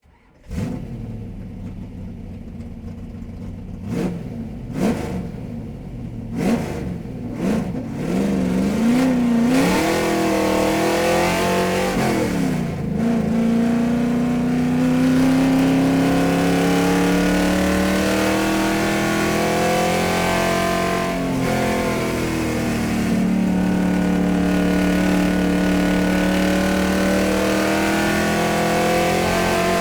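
A car engine starts up and is blipped with a few short revs and sharp knocks. It then climbs in pitch and runs on at a steady high engine speed, with one brief drop and recovery partway through.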